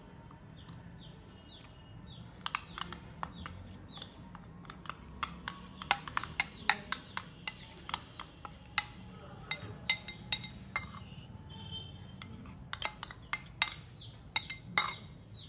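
A metal spoon clinking and scraping against a ceramic bowl as thick ground-spice paste is scraped out onto raw chicken, in many irregular sharp taps starting a couple of seconds in.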